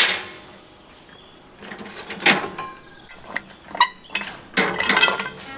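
Sharp metallic clanks and clinks from a cast-iron pressure cooker's lid and screw clamp being handled: a handful of separate knocks, one with a brief ring just under four seconds in, and a quick run of clatter near the end.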